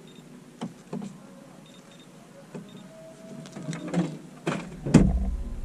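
Clicks and knocks of a freshly caught crappie being handled and unhooked in a boat. They grow busier toward the end, with a loud thump about five seconds in and a low rumble after it.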